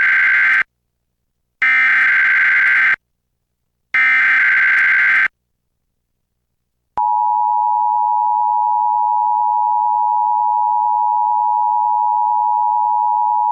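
Emergency Alert System SAME header data tones: the end of one harsh, buzzy burst and two more, each about a second and a half with short gaps, marking the start of the alert. About seven seconds in, the steady two-tone EAS attention signal begins and holds.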